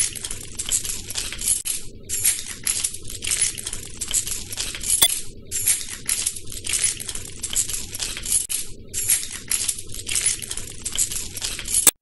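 A bunch of keys jingling, shaken in repeated bouts of a few seconds with brief pauses between, the metal keys clinking brightly against each other.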